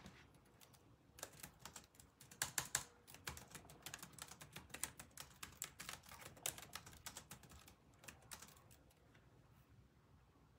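Someone typing: a fast, irregular run of key clicks that starts about a second in and stops near the end.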